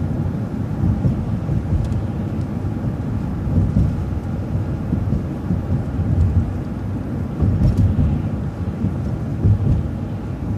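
City transit bus driving along the road, heard from inside: a steady low engine and road rumble.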